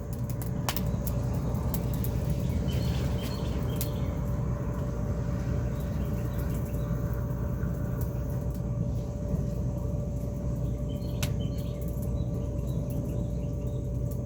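Charcoal grill fire crackling, with scattered sharp pops, over a steady low rumble.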